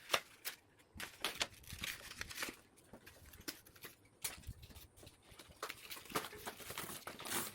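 Plastic packaging being handled and crinkled, in short irregular rustles and crackles with brief pauses between.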